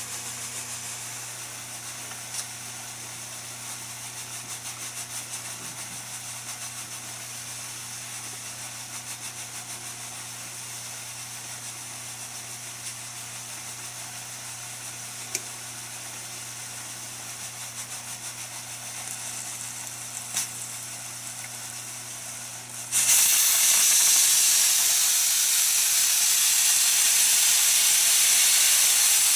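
A steady low hum with a faint hiss, then about 23 seconds in a loud, steady hiss of steam starts suddenly: pressure venting from a pressure cooker as it is uncapped after the cook.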